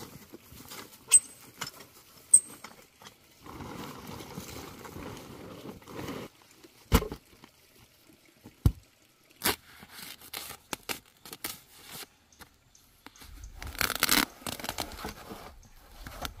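Handling a steel wheelbarrow, shovel and a sack of cement on grass: two sharp metallic clinks about a second apart, a few seconds of rustling and rolling, two dull thuds, scattered clicks, then a louder stretch of paper-sack rustling and pouring near the end as cement is tipped out.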